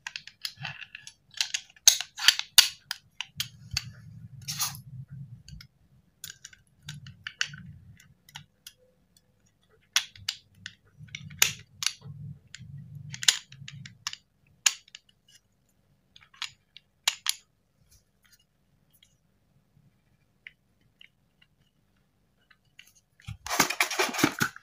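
Scattered sharp metallic clicks and clinks of a full-metal KJ Works KP02 (Sig Sauer P229) gas airsoft pistol being reassembled by hand: barrel, recoil spring and guide rod, and slide being fitted together. A denser rush of handling noise lasts about a second near the end.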